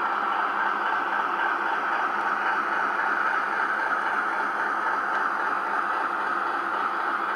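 Model railway train running past: the motor whir of an EWS Class 60 model diesel locomotive and the wheels of its rake of bogie tank wagons rolling steadily along the track.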